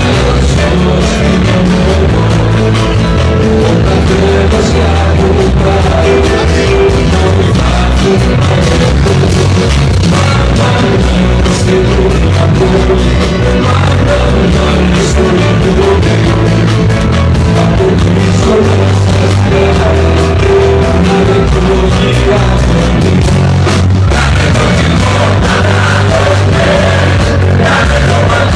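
Live band music played loud and without a break: electric and acoustic guitars, drums and hand percussion, with singing over the top.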